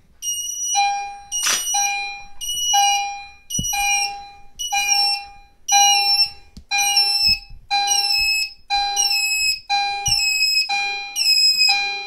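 EST Genesis chime strobe chiming in fire alarm, about once a second, each chime with higher ringing tones that fall away quickly. The alarm was set off by an addressable smoke detector tested with canned smoke. A single sharp click about 1.5 s in.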